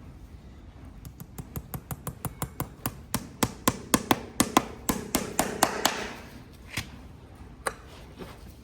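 Farrier's driving hammer tapping horseshoe nails through the hoof wall: a quick run of light taps, about four to five a second, getting louder, then a few single taps near the end.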